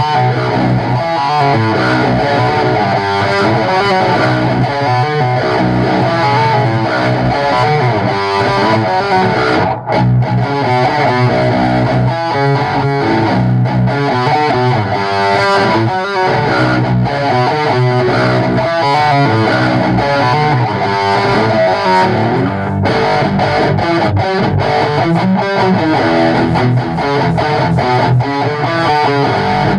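Distorted electric guitar playing a continuous metal-style riff. There is a brief break about ten seconds in.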